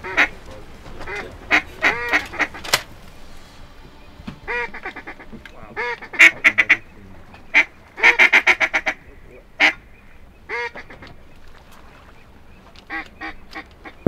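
Duck call blown as teal calling: quick strings of short, high-pitched quacks, broken by short pauses.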